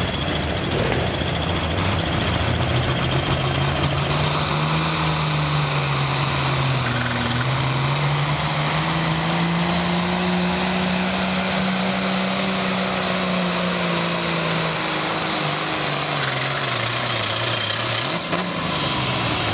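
Ford 9000 tractor's turbocharged diesel engine pulling a sled under full load. The engine note climbs over the first few seconds, holds high through the middle, then sags and wavers near the end as the pull slows. A thin high turbo whine winds up about four seconds in and drops away near the end.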